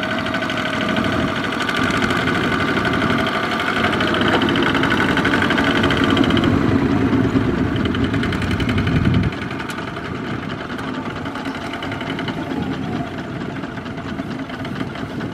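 Diesel engine of a two-wheel walking tractor running with a knocking beat. It grows louder, then about nine seconds in it drops suddenly to a quieter, steady run.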